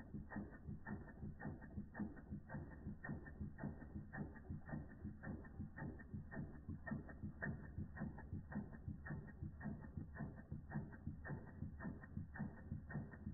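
Replica Ernst Plank tripod toy steam engine running steadily, with an even, fast clicking clatter at several strokes a second over a low rumble as the flywheel turns.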